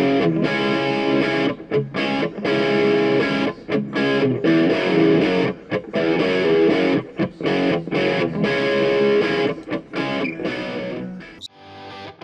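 Background music: distorted electric guitar playing with a steady rhythm, changing to a sparser, plucked pattern near the end.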